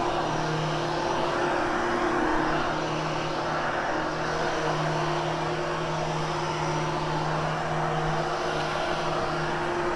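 Hoover Hushtone vacuum cleaner running steadily over carpet, a constant motor whir with a steady hum.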